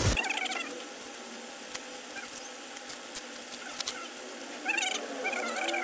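Plastic courier packaging rustling and crinkling as it is handled and opened, in scattered crackles, louder near the end.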